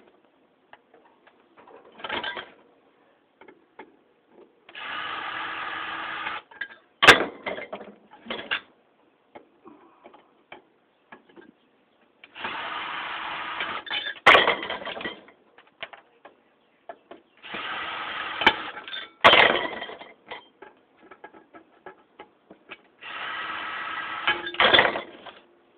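Cordless drill-driver backing screws out of a ceiling fan's cast-aluminium parts, four short runs of a second and a half or so, each followed by a loud sharp clack, with small clicks and handling in between.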